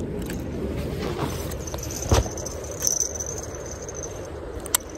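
A fishing rod being handled on concrete: a sharp knock about two seconds in and a couple of lighter clicks later. Under them, a steady high-pitched insect trill and low background noise.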